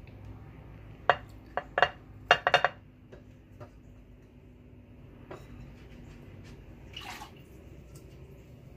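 A quick run of sharp clinks and knocks on a glass baking dish as marinated salmon fillets are laid and pushed into place on potatoes and onions, with a brief scrape a few seconds later.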